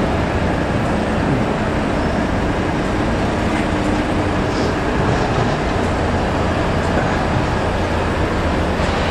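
Steady road traffic noise from passing cars and heavy vehicles on a busy city street, a continuous rumble.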